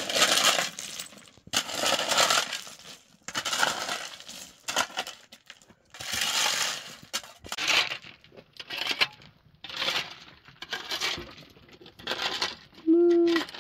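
Repeated gritty scraping and rattling strokes, one every one to two seconds, from hand work in stone and earth; a short pitched call sounds near the end.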